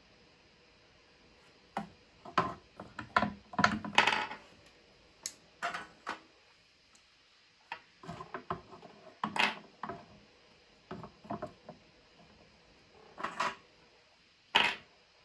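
Small tools and parts handled on a workbench during soldering: irregular clicks, taps and light rattles, starting about two seconds in, with short pauses between clusters and one sharp tap near the end.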